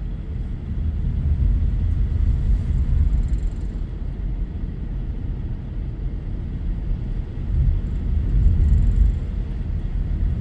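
Steady low rumble of a car driving, heard from inside the cabin: engine and tyre noise on a snowy, icy road.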